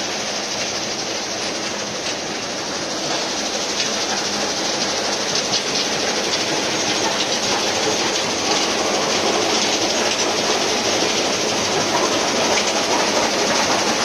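Stone crusher plant running, with crushed stone pouring off a conveyor belt into a steel tipper truck body: a dense, steady rattle and clatter of gravel over the machinery noise. It grows a little louder about four seconds in.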